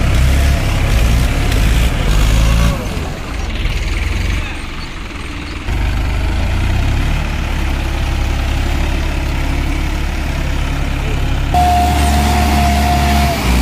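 Tractor diesel engines working under load in deep, waterlogged paddy mud: a heavy, low engine running that changes abruptly between shots. Near the end a steady high whine rides over it and drops in pitch as it stops.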